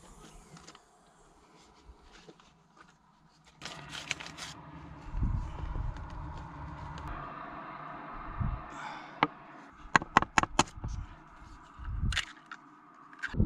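Handling noises from camp cooking gear: a few sharp clicks and knocks, a stretch of quiet scraping and rustling, then a quick run of clicks and taps.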